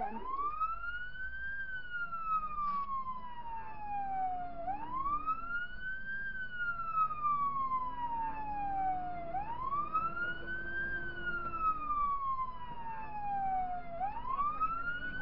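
Fire engine siren wailing on the way to a fire call: each cycle rises quickly, then falls slowly, repeating about every four and a half seconds. The vehicle's engine runs faintly underneath.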